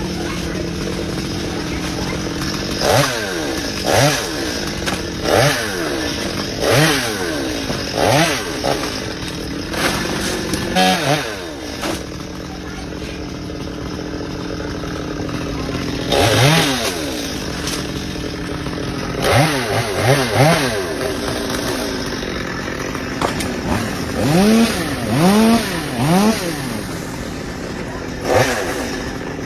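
Chainsaw engine idling, with a dozen or so quick blips of the throttle in which the pitch rises and drops straight back, coming in short runs.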